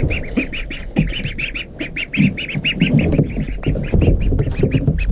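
Chickens in a coop calling: a steady run of short, high calls, several a second, with some lower clucking about two to three seconds in.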